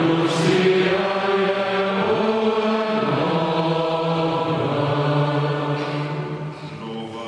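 Voices singing a slow liturgical chant in a single melodic line of long held notes, growing quieter near the end.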